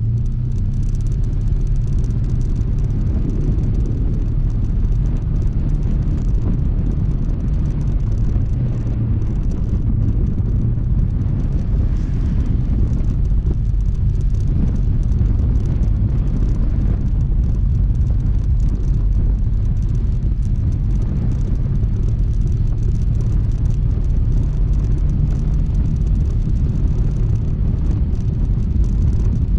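Honda ADV160 scooter's single-cylinder engine and road noise, a continuous low rumble as it is ridden at an even pace.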